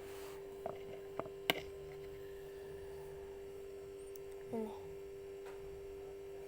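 A steady electrical hum, with a few light clicks in the first second and a half, the sharpest about one and a half seconds in.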